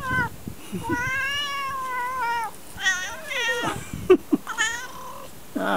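Tortoiseshell cat meowing repeatedly: a short meow at the start, a long meow about a second in that rises then falls, then several shorter ones. There is a sharp tap a little after the middle.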